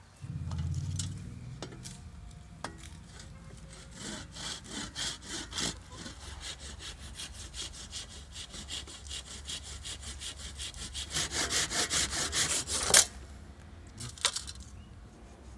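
Hand saw cutting a dry wooden branch, with steady back-and-forth strokes that quicken and grow louder toward the end, about five strokes a second. The strokes stop with one sharp crack.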